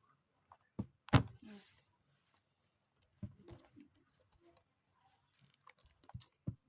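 Handling noise from a small packaging container being closed up: a few sharp knocks and clicks, the loudest about a second in, with faint rustling between.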